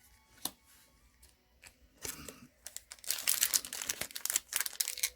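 Foil Pokémon booster pack being crinkled and torn open: a few soft clicks, then a dense crackling rustle from about three seconds in.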